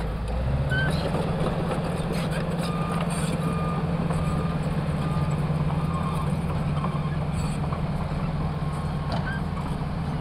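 Diesel dump truck engines running steadily, one stepping up to higher revs about half a second in, as the tipper bodies are raised to dump soil. A reversing-type alarm beeps about six times, evenly spaced, from about three to six seconds in.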